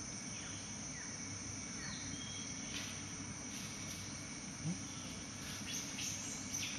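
A steady high-pitched drone of rainforest insects, with scattered short bird chirps over it and one brief low sound about two-thirds of the way in.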